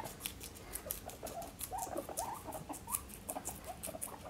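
Guinea pigs crunching lettuce, a quick run of sharp chewing clicks, with soft little squeaks and chirps from the pigs.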